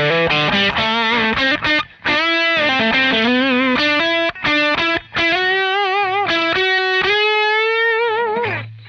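Electric guitar played through a home-built overdrive pedal into a Vox AC30 amp model, giving a distorted tone. It plays a run of picked single notes, then held notes with vibrato, ending on a long sustained note that dies away near the end.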